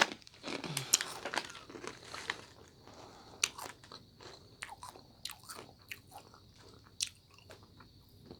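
Crunching and chewing of spicy candy-coated peanuts, the hard coating cracking between the teeth. The sharp crunches come thick at first and thin out to scattered chews.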